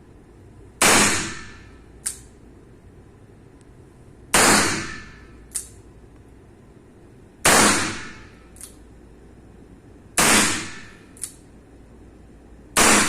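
Five gunshots fired slowly, about three seconds apart, in deliberate precision fire. Each has a short ringing tail, and each is followed about a second later by a much fainter sharp click.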